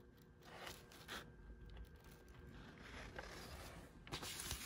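Faint rustling and scraping of paper as the pages of a printed instruction manual are handled and turned, getting louder near the end.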